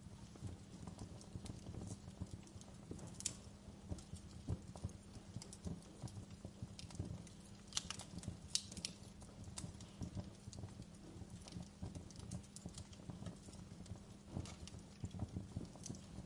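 Fireplace crackling: irregular pops and snaps over a low, steady rumble.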